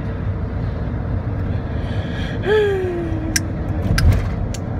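Car cabin road and engine noise, a steady low rumble while driving. About halfway through, a voice slides down in pitch for about a second, followed by a few sharp clicks.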